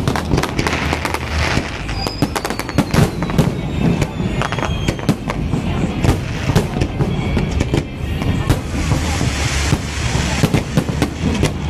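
Fireworks display: a dense, continuous run of sharp bangs and crackling bursts, with a few falling whistles. Music plays steadily underneath.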